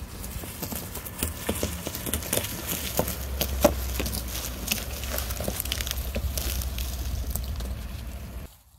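Chevrolet Silverado pickup truck's engine running as a steady low rumble close by, with irregular crackling and snapping of dry corn stubble. The sound stops abruptly near the end.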